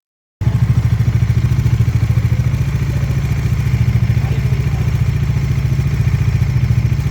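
Bajaj Dominar 400's single-cylinder engine running steadily, smooth and even with a new chain tensioner fitted to cure its engine noise. It starts suddenly about half a second in.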